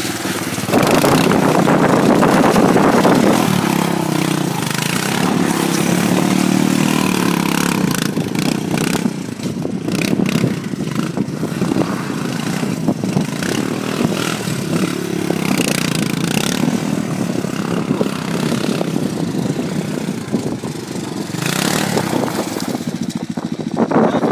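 Three-wheeler ATV engine revving hard and easing off again and again as it spins doughnuts on wet, slippery ground. It gets louder about a second in and its pitch rises and falls throughout.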